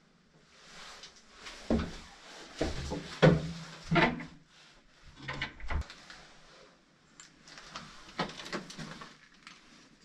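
An old wooden door being worked open by hand: a run of knocks and thuds over a few seconds, then lighter clicks and scraping.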